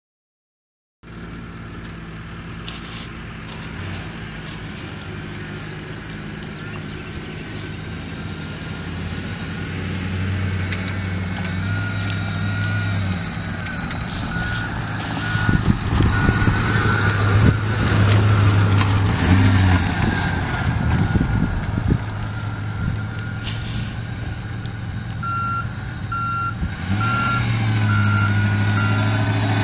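A 2008 Ford F150's 4.6-litre V8 running while the pickup is driven, its engine note swelling and easing off. About twelve seconds in, and again near the end, a backup alarm beeps in a steady rhythm, the sign of the truck in reverse.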